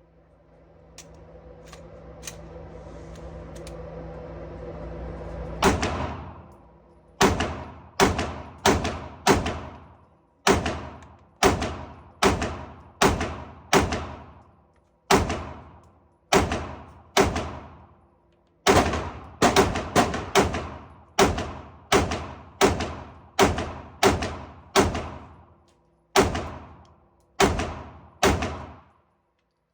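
Gunshots at a shooting range: about thirty shots fired at a steady pace, roughly one every half second to one second, starting about six seconds in. Each shot has a short ringing tail.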